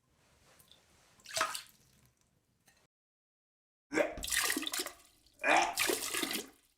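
A person vomiting: a short wet splash about a second in, then two loud retching heaves, each a strained voiced gag with liquid splattering.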